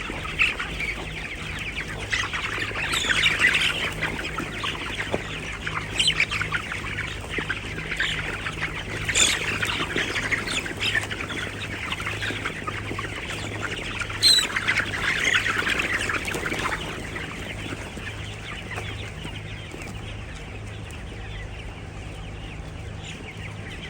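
A large flock of poultry calling all at once in a dense, continuous chatter, with a few louder squawks standing out, over a steady low hum.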